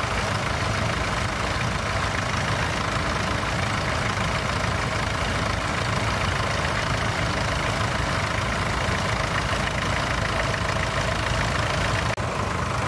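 Tractor engine running steadily. The sound changes abruptly near the end.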